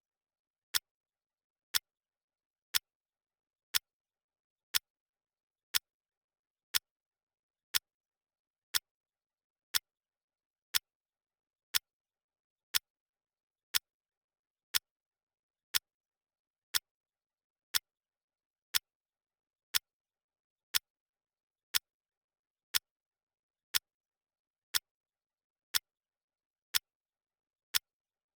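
Clock ticking sound effect: one sharp tick each second, evenly spaced, with silence between ticks.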